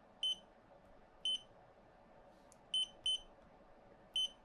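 Touchscreen TFT display module's built-in buzzer giving five short, high-pitched electronic beeps at uneven intervals, two close together about three seconds in. Each beep confirms a touch on an on-screen button.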